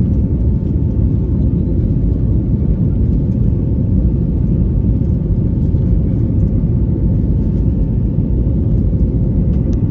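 Airplane taking off: a steady, loud low rumble of engines and airflow, with a faint steady whine above it.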